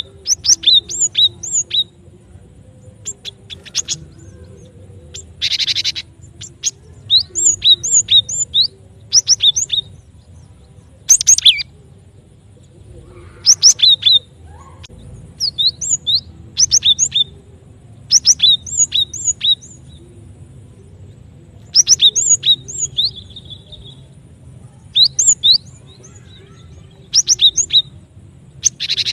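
Cinereous tit (gelatik batu) song played as a trapping lure: repeated short phrases of sharp, high whistled notes, a few notes per phrase, every second or two. A harsh buzzy call comes about six seconds in.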